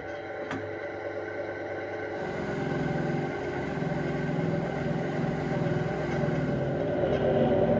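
A small motor running steadily, getting gradually louder, with a deeper, pulsing note coming in about two seconds in.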